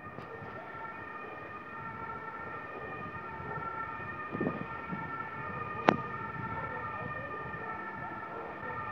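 A steady, continuous warning tone holding several pitches at once, without rising or falling. One sharp crack stands out about six seconds in.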